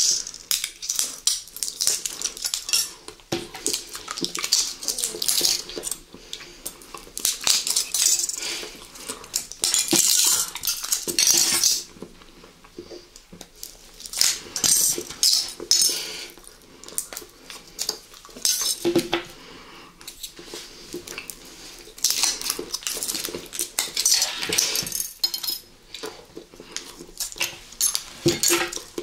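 Close-miked clinking and clattering of cutlery against dishes while food is handled, in bursts of crisp clicks broken by short quieter pauses.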